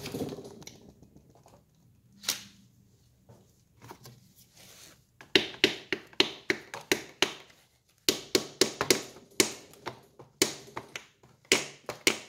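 A small screwdriver tip clicking and scraping against the bronze ring in the aluminum prime valve bore of a Titan 440 pump block as the ring is pried out. After a knock at the start and a single click, irregular sharp metal clicks come several times a second from about five seconds in.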